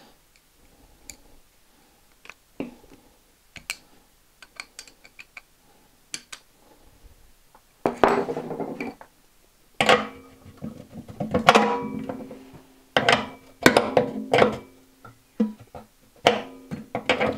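Guitar background music that comes in loudly about eight seconds in, after a quieter stretch of light clicks and clinks from small metal tools and sanding spindles being handled.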